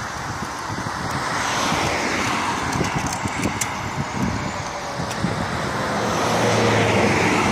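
Cars passing on an asphalt road, their tyre and engine noise swelling as one goes by about a second and a half in. A second car approaches and passes near the end, the loudest point, with a low engine hum.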